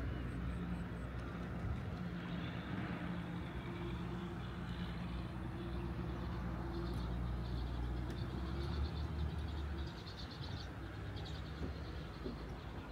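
A motor vehicle's engine running steadily close by, its hum dropping away about ten seconds in. Birds chirp faintly in the background in the second half.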